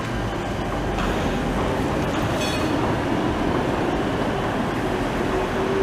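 Electric street trams running on street track, one pulling away and another approaching, with a steady rumble of wheels and motors. A brief high-pitched squeal comes about two and a half seconds in.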